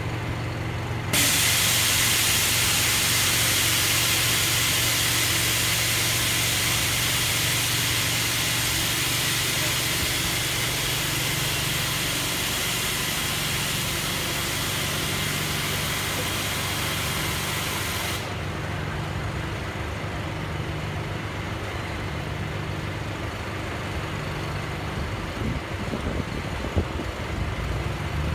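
A loud steady hiss, like air or steam escaping, that starts suddenly about a second in and cuts off suddenly about 18 seconds in, over a low steady engine hum.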